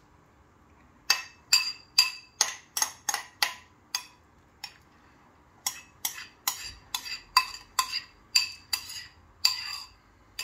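Metal spoon clinking and scraping against the rim of a ceramic bowl while marinated onion is knocked out of it. There is a run of sharp clinks, about two or three a second, each with a short ring. They start about a second in, with a brief pause near the middle.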